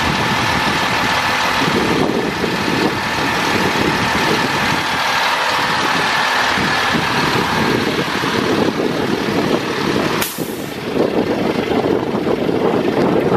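Diesel engine of a tilt-tray truck idling steadily, with a brief sharp click about ten seconds in.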